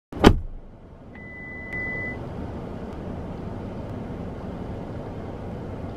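A sharp click, then a door-entry access reader giving one steady electronic beep about a second long, with a faint tick as it starts and another partway through. Low steady background noise, like distant traffic, runs underneath.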